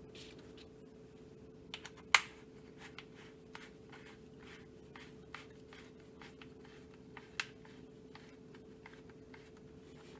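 Faint, irregular small clicks and ticks of a long screw being driven into the rear of a plastic rifle stock, with one sharper click about two seconds in. A steady low hum runs underneath.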